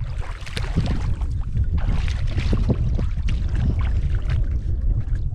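Water splashing and sloshing as clam diggers wade and dig with shovels in shallow tidal water, over a steady low rumble.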